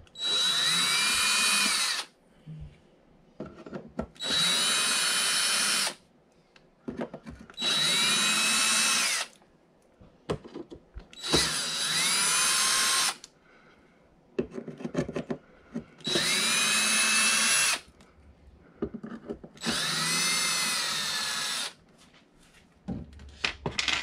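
A DeWalt 20V cordless drill/driver with a small Torx bit backing screws out of an RV switch panel. It runs in six short spins of about two seconds each, one roughly every four seconds, with the motor pitch rising as each starts and falling as it stops. Light clicks and handling come between the spins.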